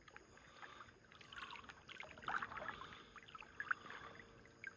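Faint water splashing and sloshing from someone wading through a river, a run of small irregular splashes that thickens in the middle.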